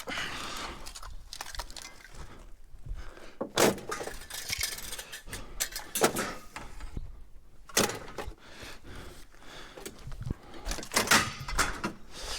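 Junk being rummaged through and shifted around in a dumpster: ongoing rustling and clatter, broken by several sharp knocks as hard objects hit each other.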